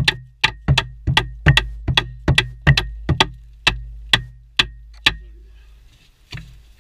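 Hammer blows driving timber headboards into place: about two sharp strikes a second, each with a brief metallic ring. The blows stop about five seconds in, and one more follows a second later.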